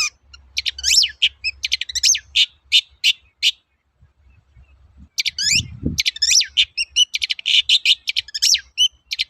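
Long-tailed shrike singing rapid runs of quick, scratchy chattering notes and short whistles, pausing briefly near the middle. A short low rumble comes just before the song resumes.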